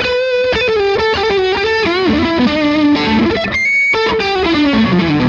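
Electric guitar played through an amplifier: a lead line of held notes with vibrato, one note bent down about two seconds in, and a phrase falling in pitch near the end.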